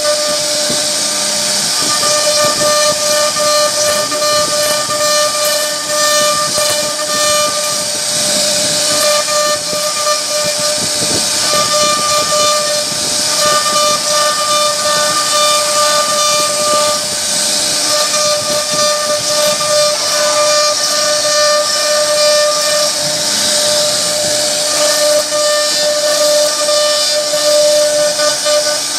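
CNC router spindle running steadily while its bit carves relief patterns into a wooden door panel. It makes a constant high-pitched whine over a loud hiss of cutting wood.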